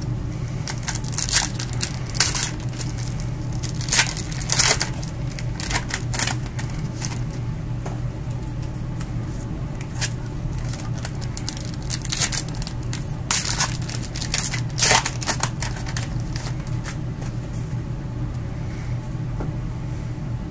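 Foil wrappers of 2017 Donruss Optic baseball card packs crinkling and tearing as gloved hands open them, in irregular bursts over a steady low hum.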